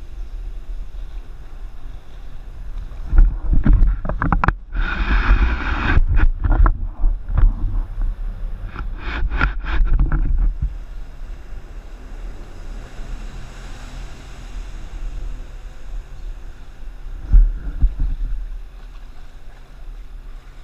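Small outboard motor of a Craig Cat mini catamaran running at speed, under wind buffeting the microphone. The buffeting comes in loud gusts for several seconds a few seconds in, and once more briefly late on.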